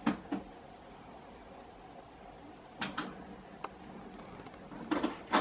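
Short knocks and clicks, mostly in pairs a quarter-second apart: one pair at the start, another about three seconds in, a single click soon after, and a louder pair near the end, over a faint steady hiss.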